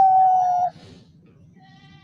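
Zebra dove (perkutut bangkok) cooing: the long drawn-out closing note of its song, held for under a second and falling slightly in pitch, then stopping.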